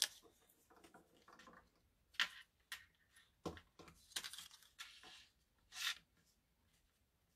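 Faint rustling and scraping of paper pieces handled on a table, with a few short strokes of a glue stick rubbed onto paper.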